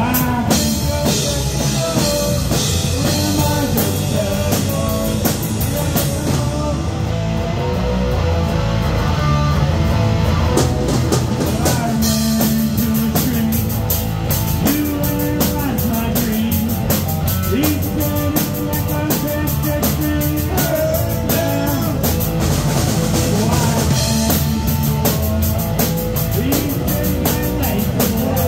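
Three-piece rock band playing live: electric guitar, bass guitar and drum kit, with the drummer keeping a steady beat on the cymbals.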